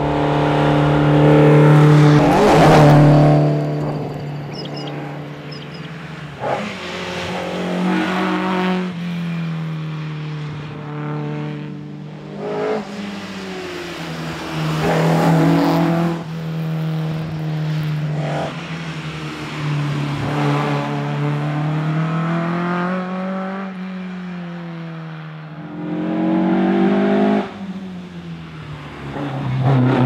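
Ford Escort Mk1 rally car's engine driven hard, its pitch rising and falling over and over as it revs up and lifts off. It grows louder several times as the car comes close.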